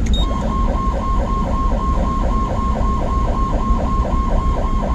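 Ambulance electronic siren, run from a Feniex 4200 DataLink controller, sounding its "traffic" tone: a high tone that dips and snaps back about four times a second. A steady low vehicle rumble runs underneath.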